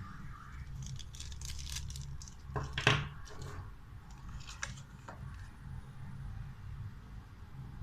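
Small plastic accessories and packaging being handled: scattered light clicks and rustles, with one louder clack just under three seconds in.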